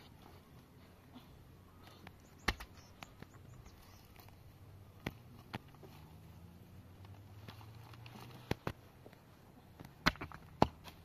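Stones being set down by hand on top of a tarp-covered cinder block wall, with scattered sharp knocks of rock on rock, about seven in all; the loudest two come near the end.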